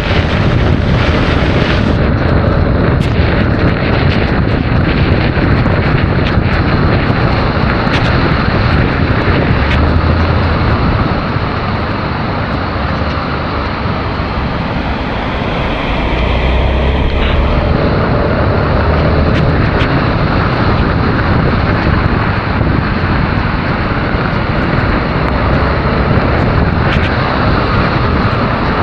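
Heavy wind noise rushing and buffeting over the action camera's microphone while riding a Honda Forza 350 scooter, with the scooter's engine and road noise underneath. It eases a little partway through, then picks back up.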